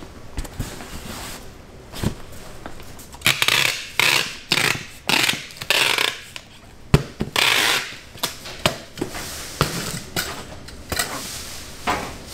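Bakery handling noise: a quick string of short scraping or rustling bursts mixed with sharp clicks and knocks, coming thick from about three seconds in.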